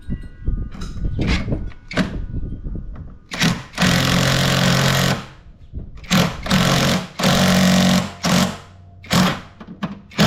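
Impact wrench hammering in bursts, tightening the nuts on a strut's top mount: one long burst of about two seconds a little over three seconds in, then several shorter bursts, with light clicks and knocks from handling before them.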